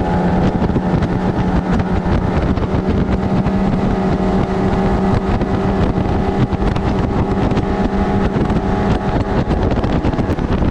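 Boat's outboard motor running at a steady speed, with a constant engine drone over a rushing wash of water and wind.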